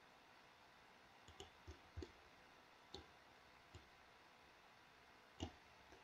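Faint, scattered clicks of a computer mouse and keyboard, about eight in all, the loudest a little after five seconds in.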